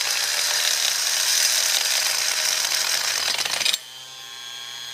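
Oscillating multi-tool cutting through the E-unit mounting tab on a toy train locomotive's chassis, a loud grinding buzz. A little under four seconds in it drops suddenly to a quieter, steadier buzz.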